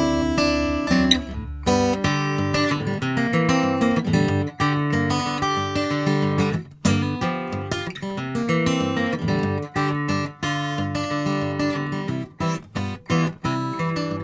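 Gibson HP-635W acoustic guitar (spruce top, walnut back and sides) strummed and picked in changing chords, with a sharp attack on each stroke.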